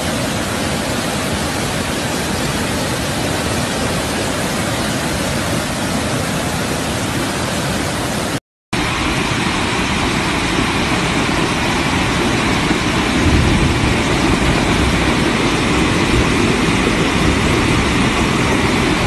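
Muddy floodwater rushing in a torrent down a street: a loud, steady rush of water. It drops out for a moment about eight and a half seconds in, then comes back fuller and lower.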